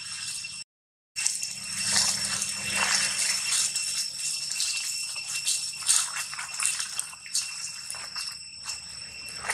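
Dry leaves rustling and crackling under a long-tailed macaque's hands and feet as it forages and walks through leaf litter, over a steady high-pitched drone. The sound cuts out completely for about half a second near the start.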